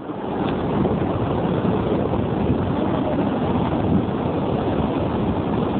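Steady wind buffeting a phone microphone, with surf washing onto the beach underneath.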